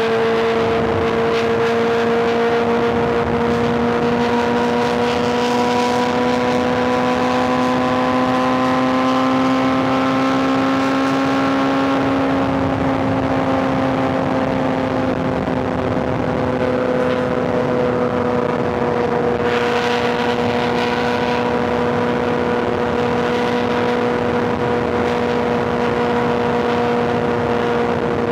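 Superbike inline-four engine running at a steady cruise, its note rising slowly over the first dozen seconds and then easing off slightly, with wind and road noise throughout.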